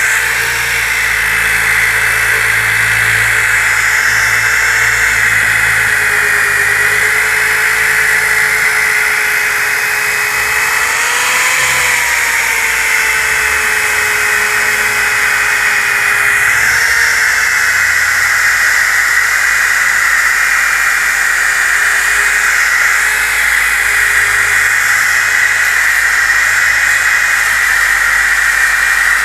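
DeWalt DWE6401DS disc sander running steadily while sanding a wooden board. It makes a loud whine that rises slightly in pitch a couple of times as the load on it changes.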